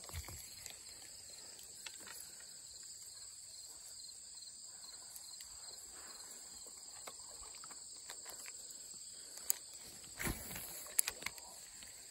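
Steady high-pitched chorus of insects in the grass. A few short knocks and rustles come about ten seconds in.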